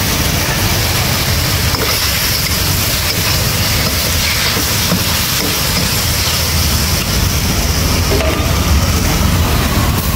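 Sliced beef stir-frying in a hot wok: a loud, steady sizzle and roar, with a metal ladle scraping and tossing the meat against the pan, giving a few faint clinks.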